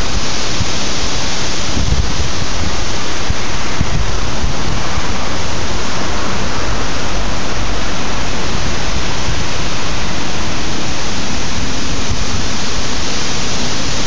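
Strong storm wind blowing through the trees and across the microphone: a loud, steady rushing noise with uneven low buffets underneath.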